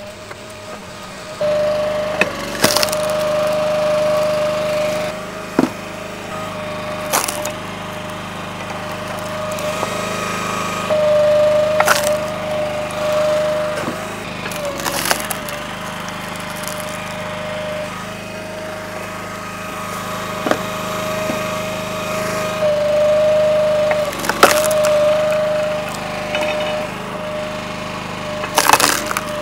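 Split-Fire 3490 two-way log splitter running with a steady whine, with sharp cracks every few seconds as wood rounds split apart under the wedge.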